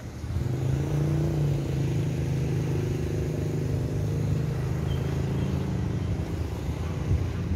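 An engine running at a steady speed, a low drone that comes up just after the start and holds.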